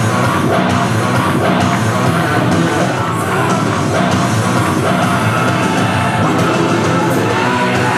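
Loud rock music playing steadily, with yelled vocals.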